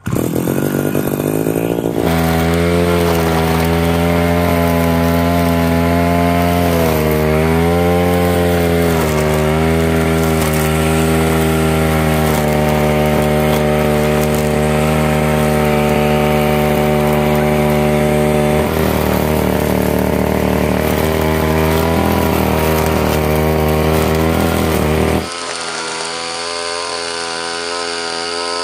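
Tanaka brush cutter's small petrol engine catching on the pull start and running loud and steady close by, its pitch dipping and rising a few times as the throttle is worked. Near the end it is heard quieter and further off, cutting grass.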